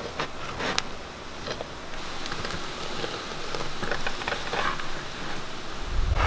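Serrated bread knife sawing through the crisp crust of a freshly baked sourdough loaf on a wooden cutting board: crackling, scratchy rasps with a few sharp clicks.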